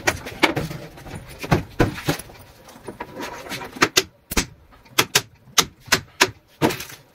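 A small mallet tapping the panels and corner connectors of a DIY cube-style shoe rack together during assembly: a series of sharp knocks, scattered at first, then about three a second in the second half.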